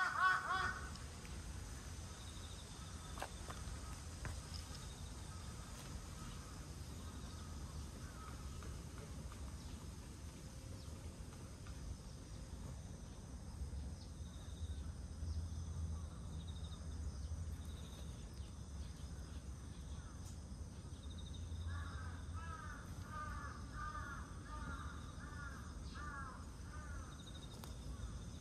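A bird calls in a quick run of short rising-and-falling notes, about two a second, for several seconds near the end, with a brief burst of the same at the very start. A steady low rumble of distant traffic runs underneath.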